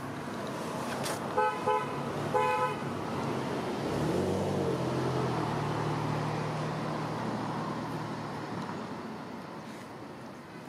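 A vehicle horn honks in two short bursts about a second apart. Then a motor vehicle engine passes: its hum rises about four seconds in and fades away over the following seconds.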